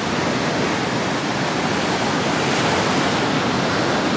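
Ocean surf, a steady loud rush of breaking waves with no breaks in it.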